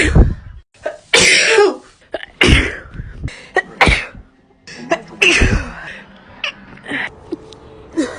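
A person sneezing again and again in a fit, about six loud sneezes spaced a second or so apart, with quick breaths between. The sneezing is chronic, going on for two years.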